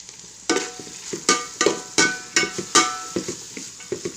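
Metal spatula stirring vegetables in a pan, striking it in a run of ringing clanks about two or three a second, over the sizzle of frying in oil.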